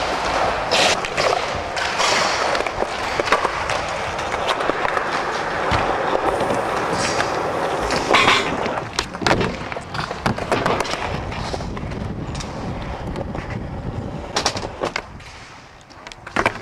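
Skateboard wheels rolling over concrete, broken by sharp clacks and slaps of the board hitting the ground and ramp edges several times, strongest about a second in, around eight seconds in and near the end.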